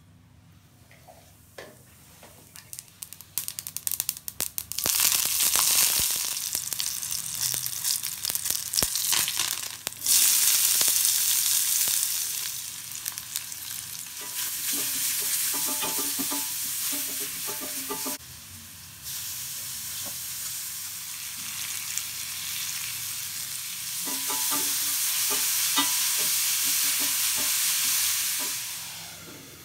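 Mustard seeds crackling and popping in hot oil in a cast-iron skillet, building into a loud, steady sizzle as shallots, green chillies and turmeric go into the oil and are stirred. Later grated beetroot sizzles as it is stir-fried, with the spatula clicking and scraping on the cast iron, and the sizzle fades near the end.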